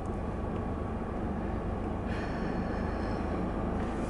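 Car engine and road rumble heard from inside the cabin, steady and low. About two seconds in, a faint high-pitched whine joins it for under two seconds.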